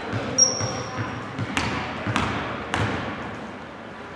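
Basketball bounced on a hardwood gym floor, about two bounces a second, with a brief high squeak about half a second in.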